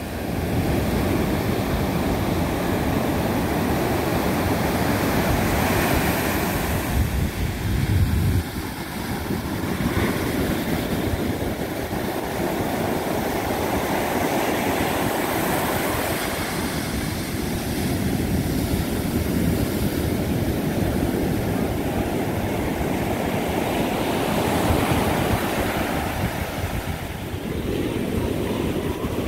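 Ocean surf breaking and washing up a sandy beach: a steady rushing that swells and eases as each wave comes in. Wind buffets the microphone, strongest about eight seconds in.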